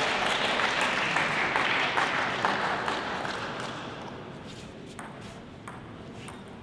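Crowd applause with many hand claps, loud at first and dying away over about four seconds. Near the end come a few separate sharp taps of a table tennis ball.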